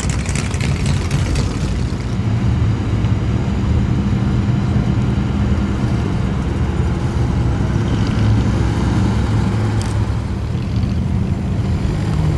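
Old cars' engines idling with a low, steady exhaust rumble as they roll slowly by, with a rapid ticking over the first couple of seconds.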